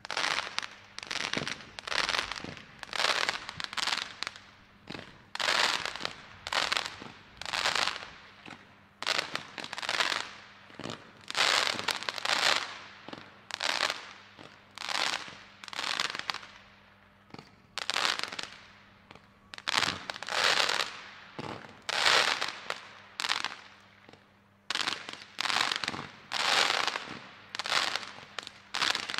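Weco Trickstar 100-shot fire-pot firework battery firing shot after shot, about one a second. Each shot is a sharp pop followed by a short spray of crackling stars.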